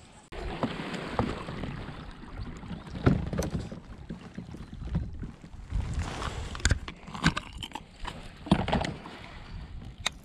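Water lapping and sloshing against a kayak's hull, with wind noise on the microphone, broken by several sharp knocks and clicks.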